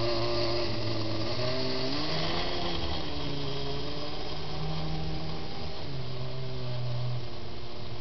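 Kyosho Blizzard RC snowcat's electric drive motor and gearbox whining steadily, the pitch rising and falling as the throttle changes, about two seconds in and again near six seconds.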